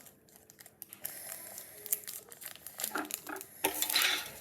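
Crinkling of a Pokémon booster pack's foil wrapper as it is handled and torn open, with a louder burst of crackling near the end.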